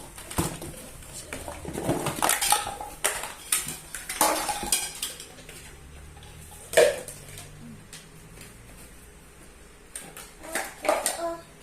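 Hard plastic toy pieces clattering and knocking together as they are handled, in irregular clicks, with one louder knock about seven seconds in.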